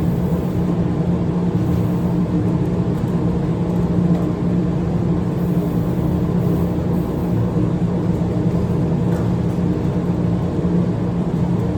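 Steady machine hum from a running electric motor or fan, holding one low pitch without change.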